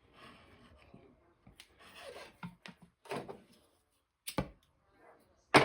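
Hands swapping the tip on a small soldering torch: scraping and rubbing of small metal parts with a few sharp knocks, the loudest knock near the end.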